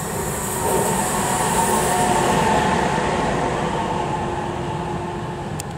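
Electric locomotive running light passing close by: wheel rumble with a steady whine of several tones, loudest about two seconds in and fading near the end, with a couple of sharp clicks just before it dies away.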